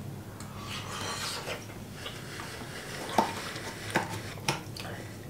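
Quiet mouth sounds of chewing a bite of rehydrated spaghetti, then a spoon clicking and scraping a few times inside a freeze-dried meal pouch in the last couple of seconds.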